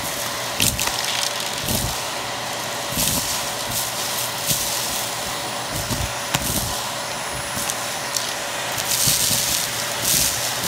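Vacuum cleaner running with a steady motor whine while its brush nozzle sucks up lint and small debris, with irregular rattling and crackling bursts about every second as debris goes up the hose.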